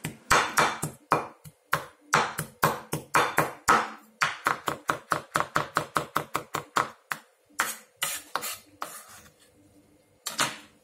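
Kitchen knife mincing peeled garlic on a wooden cutting board: rapid, uneven chopping strikes, about four or five a second. They thin out near the end.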